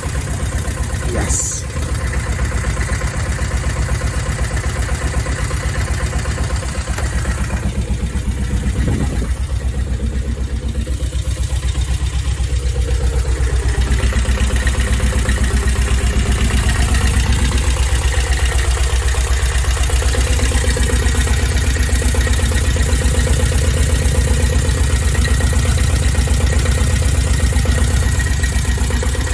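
Bukh DV8 single-cylinder marine diesel running steadily, just after starting for the first time in over four years. It gets a little louder about halfway through.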